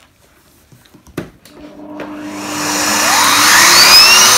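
A click about a second in, then a Numatic canister vacuum cleaner's motor switched on and spinning up, its whine rising in pitch and level until it runs steadily near the end.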